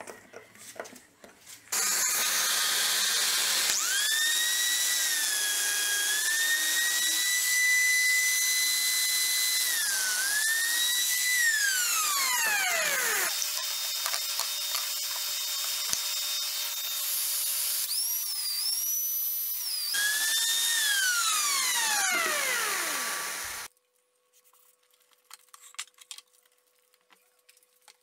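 Electric motor of a handheld power tool running at a high, steady whine, twice winding down with a falling whine, then stopping abruptly a few seconds before the end.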